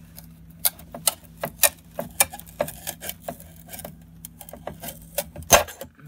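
Flathead screwdriver prying and scraping under the glued transducer plate on the underside of a stainless steel ultrasonic cleaner tank. Irregular sharp metallic clicks and scrapes, about two a second, as the glue layer holding the plate gives way, with the loudest crack near the end.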